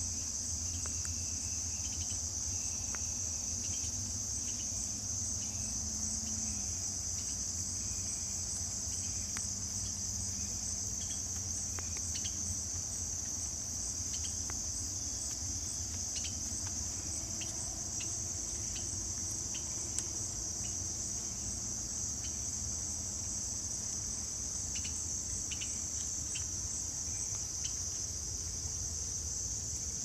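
Steady, unbroken high-pitched chorus of insects singing in the trees, over a faint low steady rumble.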